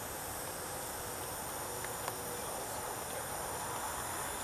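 Quiet outdoor ambience: a steady hiss with a faint, even high-pitched drone, and one small tap about two seconds in.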